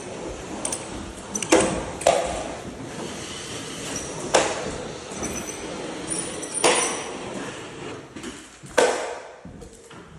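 A 12-inch TapeTech flat box on an extension handle sliding along a drywall ceiling joint, spreading a skim coat of joint compound: a steady scraping glide broken by several sharp knocks a couple of seconds apart.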